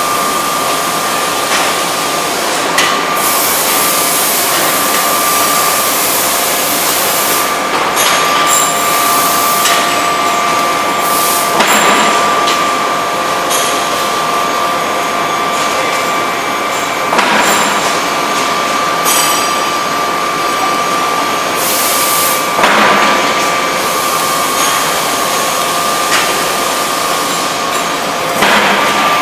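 Electro-hydraulic die forging hammer working hot steel: a steady high whine over constant shop noise, with a sharp blow every few seconds.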